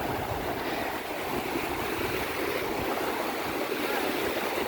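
Sea surf washing on the beach, a steady rushing noise.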